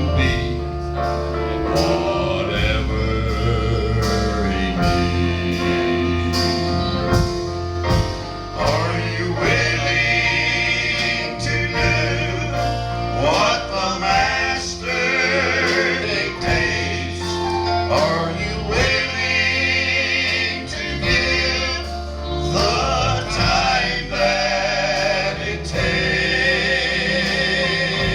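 A gospel quartet of mostly male voices singing a song in harmony, with instrumental accompaniment keeping a steady beat.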